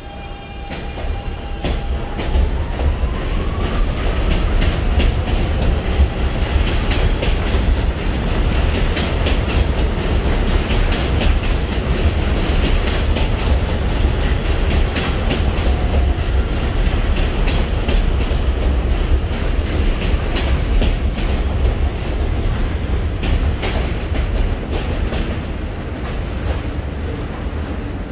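New York City subway train (an Astoria-line N train) pulling out of an elevated station, its motors whining upward in pitch as it gets under way. Its wheels clack over the rail joints under a heavy rumble, easing slightly near the end as it moves off.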